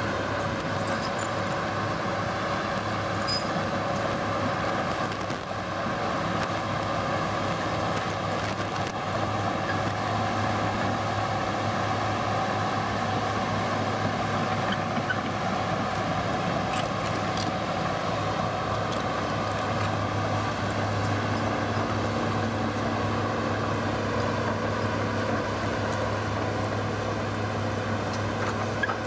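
Hitachi Zaxis hydraulic excavator's diesel engine running steadily as the machine digs and carries soil. A second, lower tone joins the engine note about two-thirds of the way through, and a few light clicks come near the end.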